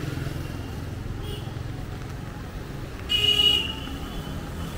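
Steady street traffic, with a short vehicle horn toot about three seconds in, the loudest sound.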